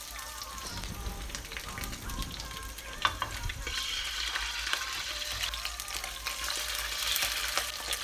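Sea bream fillets sizzling in oil in a non-stick frying pan, the sizzle growing louder as more fillets are laid in. A short click about three seconds in.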